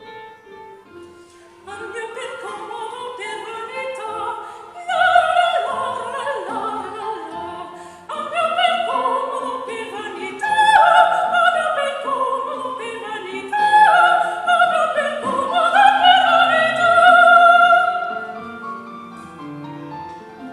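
Operatic classical singing with strong vibrato over a quieter instrumental accompaniment. The voice enters softly after a short pause and swells into long, loud held high notes from about five seconds in.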